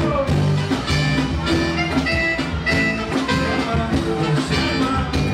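Live band playing a song: electric bass, drum kit, keyboard and acoustic guitar together, with a steady beat.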